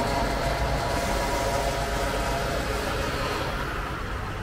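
Vehicle engine running steadily at low revs, a continuous low rumble with a higher whine over it that fades out after about three seconds.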